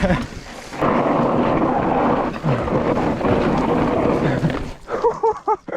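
Wind buffeting the camera microphone together with the mountain bike's tyres rumbling over a loose dirt descent: a loud, steady rush that drops away near the end.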